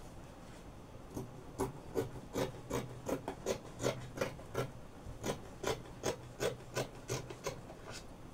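Scissors cutting through adire cotton print fabric: a steady run of short snips, about three a second, starting about a second in.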